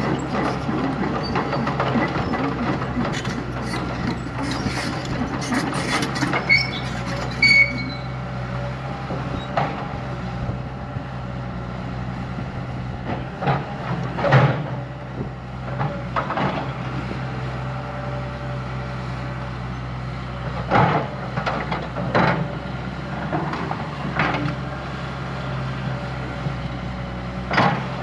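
Heavy earthmoving machine's diesel engine running steadily, with scattered metallic clanks and a few short high squeaks from the working machinery.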